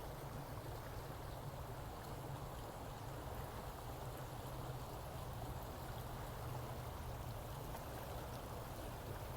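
Steady rushing noise like a flowing stream, even and unbroken, with a low steady hum underneath.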